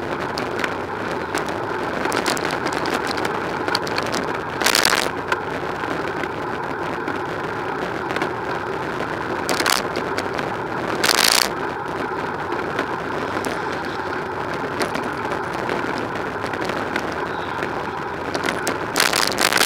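Steady road traffic noise from cars and vans on the busy multi-lane road beside the cycle lane. A few brief louder rushes of noise come through, about five seconds in, around ten and eleven seconds, and near the end.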